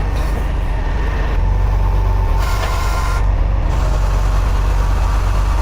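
Heavy-duty tow truck's diesel engine running with a steady low rumble, with a stretch of hiss about two and a half seconds in.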